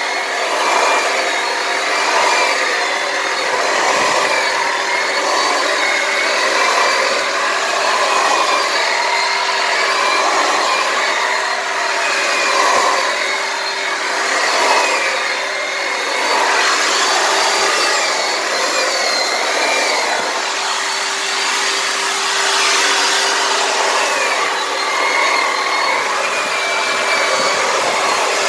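Makita electric drum sander running continuously against cedar logs, scrubbing the wood. Its motor whine wavers up and down in pitch as it is pressed in and moved along, over a steady hum.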